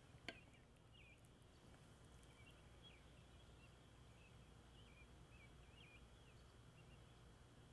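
Very faint birds chirping now and then, short high calls every second or so over a low steady hum, with a single sharp click about a third of a second in.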